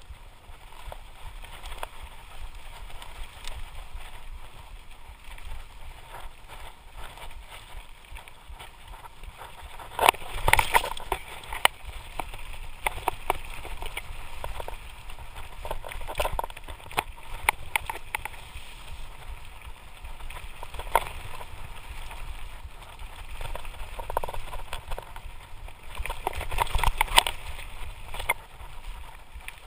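Lapierre Spicy full-suspension mountain bike descending a dirt forest trail at speed: tyres rolling over dirt and stones, with the bike clattering and rattling over rough ground, heaviest about ten seconds in and again near the end. Wind rumbles on the microphone throughout.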